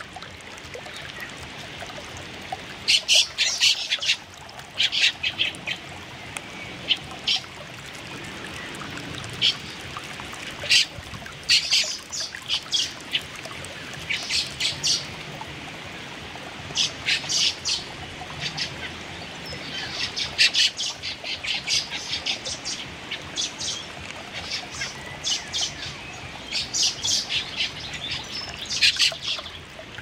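Fieldfare fledglings calling: many short, high calls, alone or in quick runs of several, over a steady background hiss.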